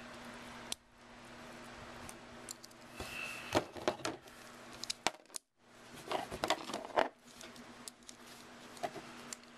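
Small metal clicks and clinks from an old Victorinox Swiss Army knife being handled, its folding tools being opened out, in a few scattered clusters.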